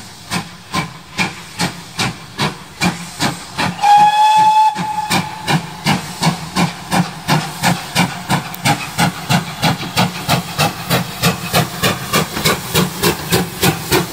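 GWR Modified Hall 4-6-0 steam locomotive No. 7903 accelerating under load. Its exhaust chuffs quicken from about two and a half to about four a second. About four seconds in it gives one whistle blast about a second long.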